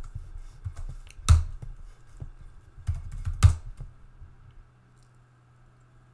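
Typing on a computer keyboard: quick key clicks with two heavier strokes, about a second in and again near three and a half seconds. The typing stops about four seconds in, leaving a low steady hum.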